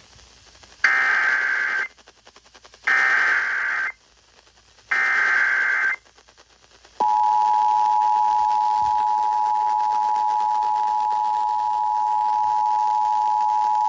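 Emergency Alert System tones: three one-second bursts of SAME digital header data, about a second apart, encoding the severe thunderstorm warning, then the steady two-tone attention signal (853 and 960 Hz) starting about seven seconds in.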